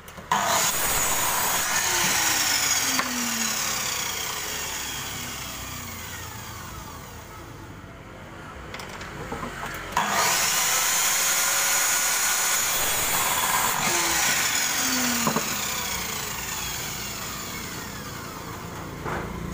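A MODERN electric miter saw starts suddenly and cuts through a wooden board. Its blade then winds down with a slowly falling whine. This happens twice: once near the start and again about halfway through.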